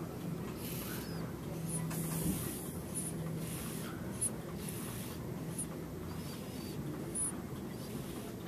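A sleeping newborn's soft breathing, a faint hiss coming back about once a second, with small squeaks and ticks over a low steady hum.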